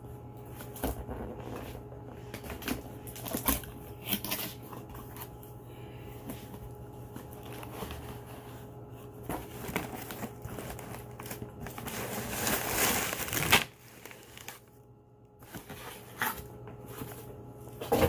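Cardboard box and packaging being handled and unpacked: scattered rustles, scrapes and light knocks, with a longer, louder crinkling of packaging about twelve seconds in, over a steady low hum.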